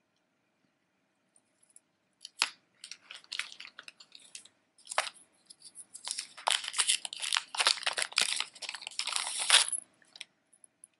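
Costume jewelry being rummaged through and handled: metal chains rustling and clinking in short, scattered bouts from about two seconds in, then a dense crinkling rattle for several seconds that stops shortly before the end.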